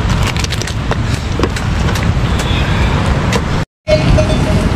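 A steady low rumble with scattered sharp clicks and knocks from a metal ladle stirring in a large aluminium pot of boiling food over a wood fire. The sound drops out for a moment a little past halfway.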